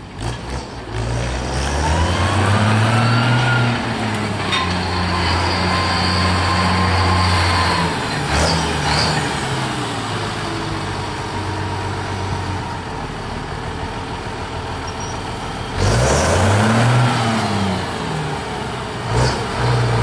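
International 955 tractor's diesel engine running and revving up and back down several times: up about two seconds in, held higher until about eight seconds, then lower, and up and down again near the end. A thin whine rises and falls with it.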